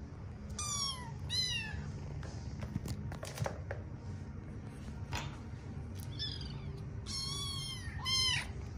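Kittens mewing: high, thin mews that fall in pitch, two about a second in and three more near the end, over a steady low purr. A couple of light knocks come in the middle.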